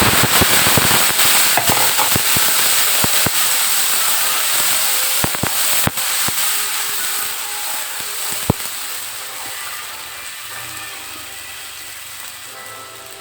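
A wet paste of ground onion, ginger, garlic and spices hitting hot oil in a pan: loud sizzling with sharp crackling pops, slowly dying down.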